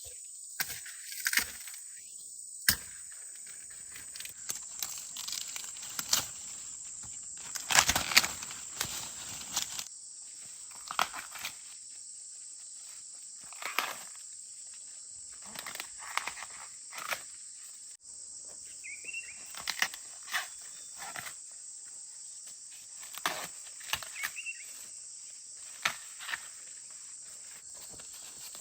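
Irregular rustling and crackling of dry corn plants being handled, over a steady high-pitched insect drone.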